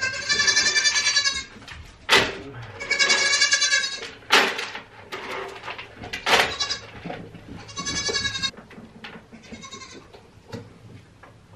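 Goats bleating: four long, wavering calls, with a few short sharp sounds between them.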